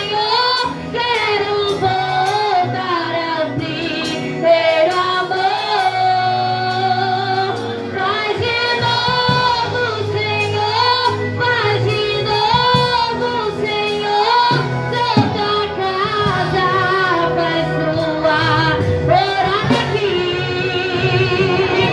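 A woman singing a gospel song into a handheld microphone, her held notes wavering with vibrato, over sustained accompaniment chords.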